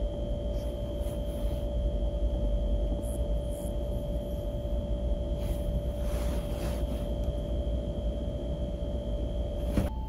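Steady low room hum and rumble from machinery such as ventilation, with a constant whine running through it and a few faint rustles.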